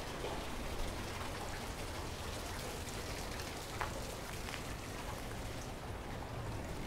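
Steady rushing and pattering of a shallow creek running over rocks, with a few faint ticks.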